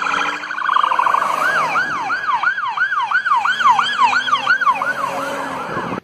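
Police car siren sounding: a drawn-out tone for about a second, then switching to a fast yelp, rising and falling about three times a second. It cuts off suddenly at the end.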